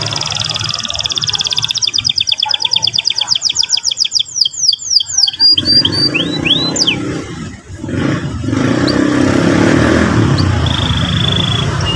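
Domestic canary singing: long, fast high-pitched trills (the rolling tours), then a handful of sweeping whistled notes in the middle and a short held note near the end, over a low steady background noise.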